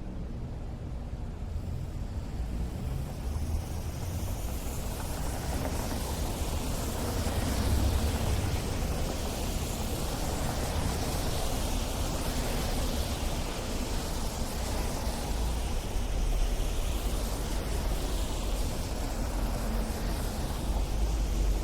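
City street traffic on snow-covered roads: a steady low rumble of engines under a broad hiss of tyres, which swells about two seconds in as vehicles pass.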